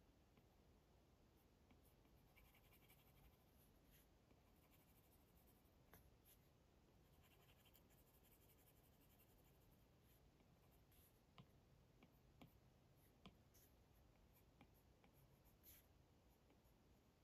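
Faint scratching of an Apple Pencil's plastic tip drawn across an iPad's glass screen in short sketch strokes, with a few sharp light taps of the tip on the glass in the second half.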